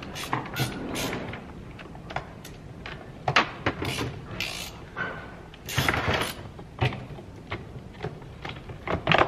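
Irregular clicks, knocks and short scrapes of plastic and metal chainsaw parts being handled as the saw's top cover is worked off.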